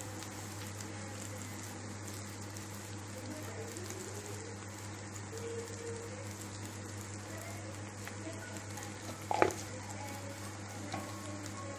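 Faint steady sizzle of brinjal curry in a still-hot pan after the stove has been switched off, over a low steady hum. One sharp tap sounds a little over nine seconds in.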